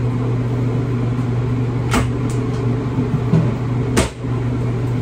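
A steady low machine hum, like a fan or air handler, with two sharp knocks about two seconds apart, the second louder.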